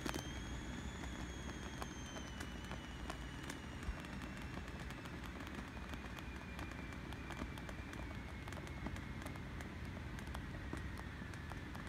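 Air escaping from a vinyl inflatable dog as it is pressed down to deflate it: a thin whistle that slowly falls in pitch as the pressure drops, with scattered crackles and creaks from the vinyl.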